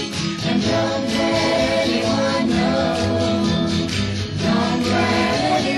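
Early-1960s pop record playing between the lead singer's lines: the band continues with backing voices.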